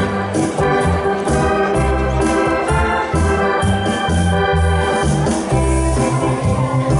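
Electronic keyboard playing dance music in an organ voice: held chords over low bass notes that fall on a steady beat.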